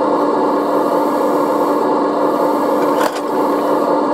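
Hydraulic drive of a radio-controlled Liebherr R 956 model excavator running with a steady hum, with one sharp click about three seconds in.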